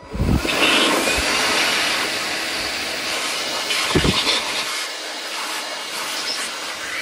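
Small handheld blower spinning up with a brief rising whine, then a steady rush of air as it blows sawdust out of an orbital sander's dust port. There is a low thump near the start and another about four seconds in.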